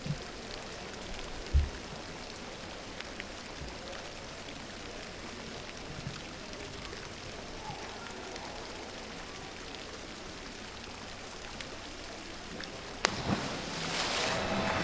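Faint steady arena hiss with a dull thump about a second and a half in; near the end a diver from the 10 m platform hits the pool water with a sharp slap, followed by a rising rush of splashing water.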